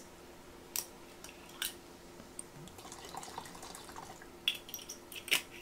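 Soju poured from a glass bottle into a plastic measuring cup, a thin trickling pour, with a few sharp clicks from the bottle and its cap being handled.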